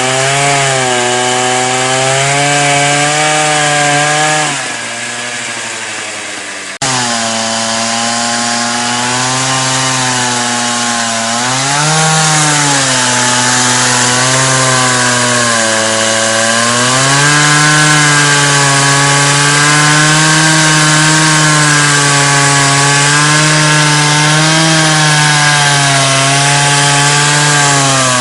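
Two-stroke chainsaw running under load as it rips a log lengthwise into planks in a homemade chainsaw mill. The engine note sags and recovers as the bar bites into the wood. It drops quieter for a couple of seconds, then jumps back abruptly about seven seconds in.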